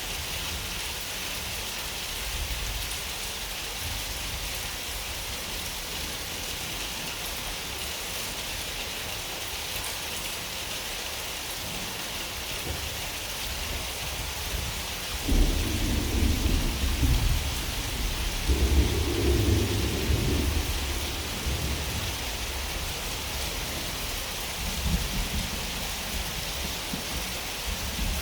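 Steady rain falling, with a roll of thunder that breaks in suddenly about halfway through, swells again a few seconds later and dies away, then a fainter rumble near the end.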